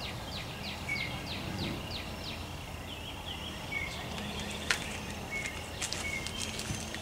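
Small birds chirping: a quick run of short downward-sliding chirps, then scattered chirps and brief whistled notes over a faint steady hiss. A few sharp clicks come in the second half, the loudest about four and a half seconds in.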